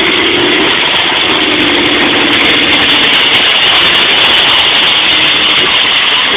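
A car engine running steadily under a loud, even rushing noise.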